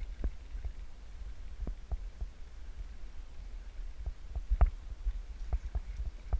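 Small fishing boat rocking on choppy water: a steady low rumble with irregular dull knocks from the hull and fittings, a few louder ones near the end.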